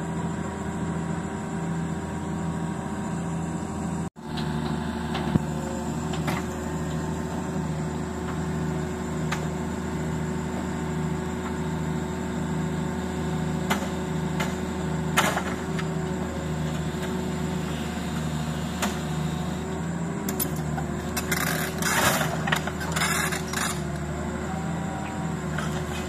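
Diesel engine of heavy earth-moving machinery running steadily at low revs, with a regular low throb. The sound drops out for an instant about four seconds in, and there are a few sharp knocks, with a quick run of them near the end.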